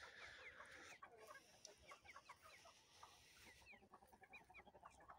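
Faint clucking of a flock of free-ranging chickens, with many short, high chirps scattered throughout.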